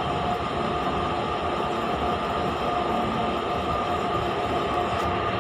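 Steady mechanical running noise, an even rush with a faint constant hum, unchanging throughout.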